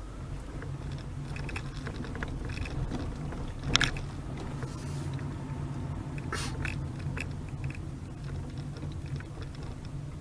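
Steady low engine and road hum inside a moving Honda Freed Hybrid's cabin, with scattered small clicks and rattles and a sharp knock about four seconds in.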